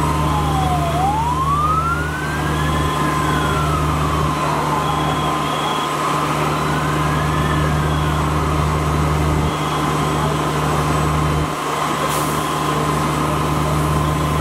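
Fire engine siren wailing in a slow rise and fall, twice, then fading out about halfway through, over the steady low hum of an engine.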